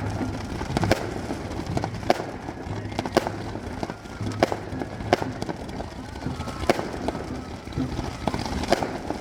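Fireworks bursting: a string of sharp bangs at irregular intervals, roughly one a second, over a steady low background rumble.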